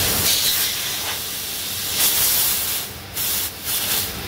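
R407C refrigerant gas hissing out of a compressor service port as a pressure gauge is unscrewed from it. The hiss grows louder about halfway through and then comes in short spurts with brief breaks. The escaping gas is refrigerant, but the compressor is suspected of water contamination from a ruptured heat exchanger, its oil having turned milky white.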